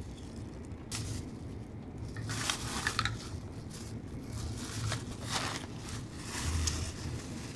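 Thin plastic bag crinkling and rustling in irregular bursts as an empty paper ice cream cup and its lid are scrunched up inside it. Under it runs the steady low rumble of the Shinkansen cabin.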